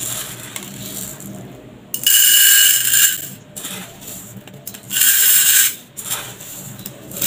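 Raw Japanese rice scooped with a wooden spoon and poured into a bowl: a quieter rustle of the spoon digging through grains in a plastic bag, then two loud rushes of grains hitting the bowl, each about a second long, the first about two seconds in and the second near five seconds.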